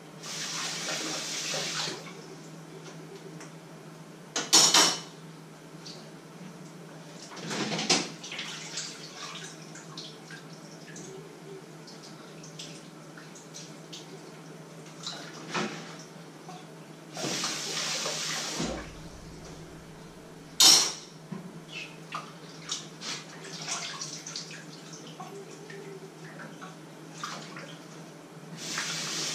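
Kitchen tap running in three short bursts of a second or two, with dishes and cutlery clattering in a sink; two sharp knocks stand out as the loudest sounds. A steady low hum runs underneath.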